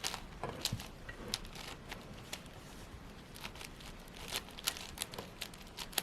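Quiet, irregular plastic clicks and clacks of a 6x6 Rubik's cube's layers being turned.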